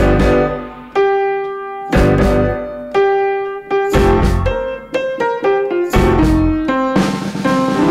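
Background music led by piano: chords and single notes struck about once a second, each left to ring out.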